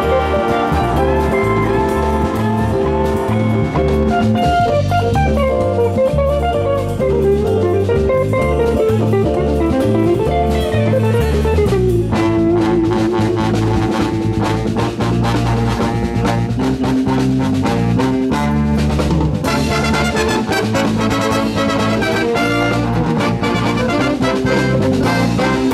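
Jazz big band playing: a saxophone, trombone and trumpet ensemble over drum kit. About halfway through the horns step down in a descending run into a held note, and the drums come through more sharply in the later part.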